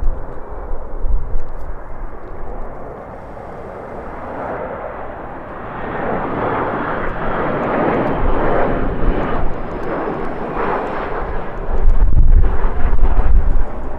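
Jet airliner passing, its engine roar swelling about five seconds in, peaking, then easing off. Strong gusting wind buffets the microphone with a deep rumble, loudest near the end.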